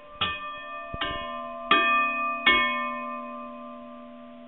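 A short chime jingle: four bell-like notes struck about a second apart, each ringing on and fading out slowly.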